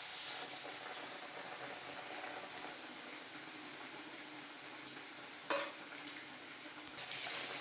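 Besan-battered bread pakoras frying in hot oil: a steady sizzling hiss, loudest as a slice goes into the oil and swelling again about seven seconds in, with a couple of light knocks in between.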